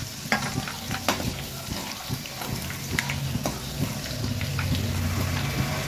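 Charoli (chironji) seeds frying in ghee in a kadhai on a low flame: a gentle sizzle with scattered sharp crackles and pops, over a low steady hum.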